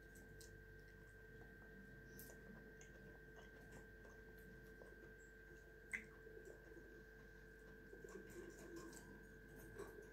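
Near silence: a faint steady hum of room tone with small, quiet clicks as a fork is used to eat from a plate, and one sharper click about six seconds in.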